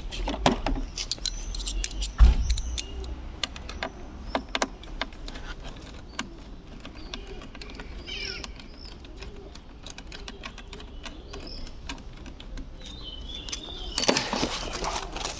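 Metal tools and parts clinking and knocking during hand work on a car, with one heavy thump about two seconds in and a burst of clattering near the end. Birds chirp now and then in the background.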